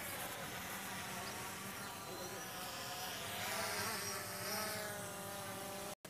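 DJI Phantom 3 quadcopter's motors and propellers buzzing, the pitch drifting up and down as the drone comes down onto the grass.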